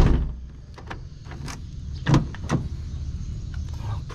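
A heavy truck's diesel engine idles with a steady low rumble. A loud knock at the start and two lighter thumps about two seconds in sit over it.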